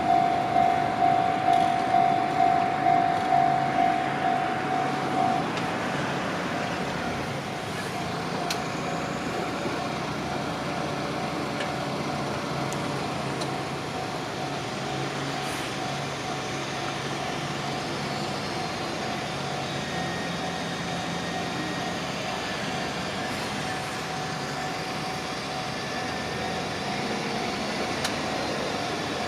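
Japanese railway crossing alarm ringing in rapid repeated dings, about two and a half a second, fading out about four to five seconds in. Then a steady rushing noise of a JR Tokaido Line train running through the crossing carries on to the end.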